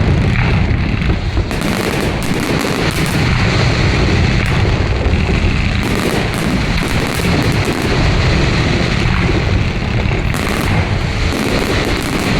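Fireworks display: shells bursting in quick succession, a dense, unbroken run of booms and crackles.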